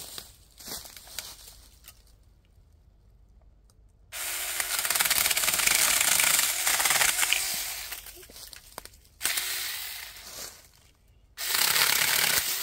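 Cordless mini electric chainsaw cutting wood, starting abruptly about four seconds in and running about five seconds. After a brief dip it cuts again for about two seconds, then starts once more near the end. Before the first cut there are only a few light clicks.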